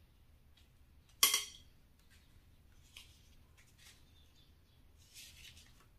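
Zongzi leaves being handled and folded around packed sticky rice: one sharp crackle about a second in, then faint ticks and a soft rustle near the end.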